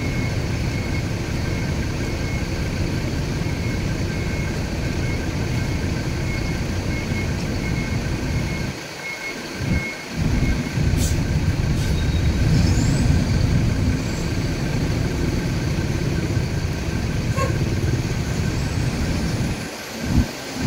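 Hino diesel coach engine running as the bus pulls away, a steady low rumble that drops off briefly twice, about nine seconds in and near the end.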